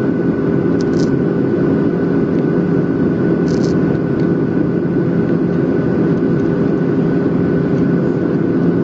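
Steady cabin noise in a Boeing 737 on approach: the even drone of its CFM56 turbofan engines and the rush of air past the fuselage, heard from a window seat over the wing, with a faint steady whine running through it.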